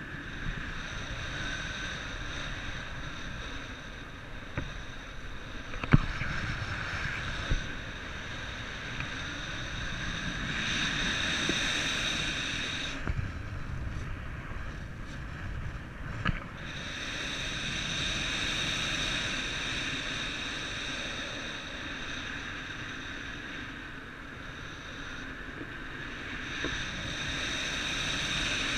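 Wind rushing over the microphone, rising and falling in gusts. A steady high whine of several tones runs over it, drops out for a few seconds midway and comes back. There is a single sharp knock about six seconds in.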